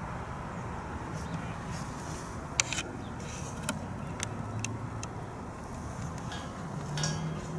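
Steady outdoor background noise with a low hum, broken by a few sharp knocks or clicks, the loudest about two and a half seconds in.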